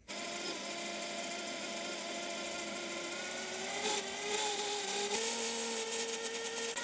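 Metal lathe running as it turns the gear knob, a steady machine whine made of several tones. The tones shift in pitch about four and five seconds in.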